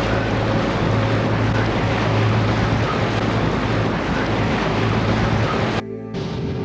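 Boat engine running steadily at sea, with wind buffeting the microphone and water rushing past the hull. The sound drops out briefly near the end.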